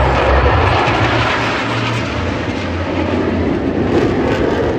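Formation of aerobatic jet aircraft flying a display overhead, their engines making a loud, steady, rushing roar that fades slightly towards the end.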